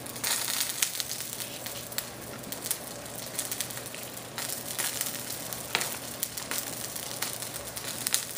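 Oil sizzling and crackling steadily as a tortilla quesadilla fries in a pan on a portable gas burner, with a few sharp clicks over it.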